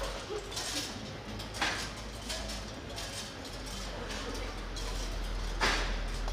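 Street crowd ambience with scattered sharp clinks and knocks, the loudest about a second and a half in and again near the end.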